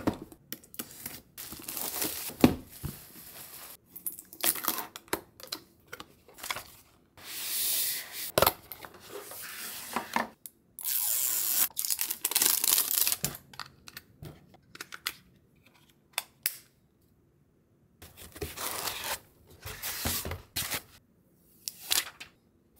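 Unboxing a projector: plastic wrap and protective film peeled and torn off the power adapter and the projector's top, crinkling and rubbing in separate bursts with short pauses between them.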